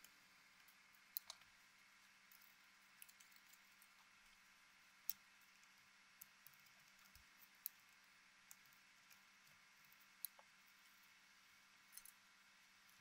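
Near silence broken by about ten faint, scattered clicks: a steel pick tapping against a small plastic grease tub and a tiny plastic gear hub as grease is dabbed inside the hub.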